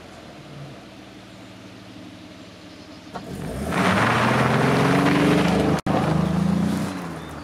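Citroën Xantia's 3.0-litre V6 idling steadily, then pulling away and revving as it passes close by, the engine note rising, with tyre noise on the gravel track. The sound cuts out for an instant in the middle, then fades as the car moves away.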